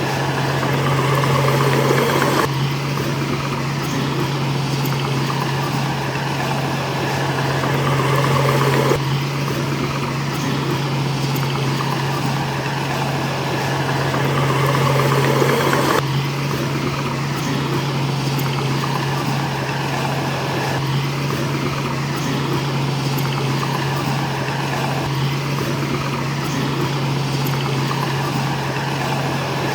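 Diesel engine of heavy construction machinery running steadily with a low hum, swelling in loudness a few times as it works under load.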